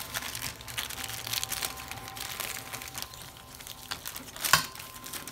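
Heavy aluminium foil, two sheets thick, crinkling and crackling as it is folded and crimped tightly around a rack of pork ribs, with one sharper, louder crackle about four and a half seconds in.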